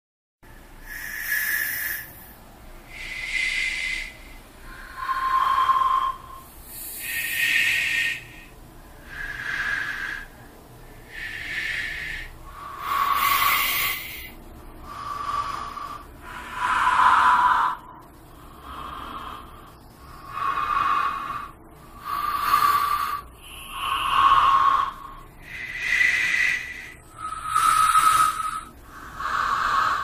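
Pan pipes blown slowly, one breathy note at a time: about fifteen held notes that each swell and fade over a second or so, with short pauses between them and the pitch wandering from note to note, a creepy horror-style motif.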